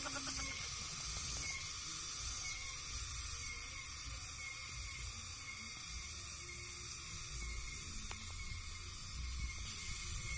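Quiet outdoor ambience: a steady high hiss over a low rumble, with a faint short chirp repeating about once a second.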